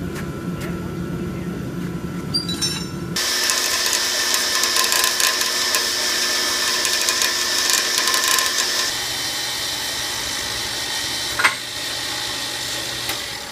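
Power saw cutting through a steel railroad rail: it runs steadily at first, then bites into the steel about three seconds in, louder and hissier, and keeps cutting. There is one sharp knock near the end.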